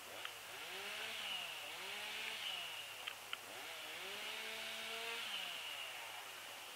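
Distant chainsaw revving up and down three times, its pitch climbing as the throttle opens and sinking as it is let off, with a few short sharp ticks.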